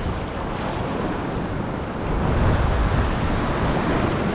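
Ocean surf washing through the shallows with waves breaking, and wind buffeting the microphone. The wash gets louder about two seconds in.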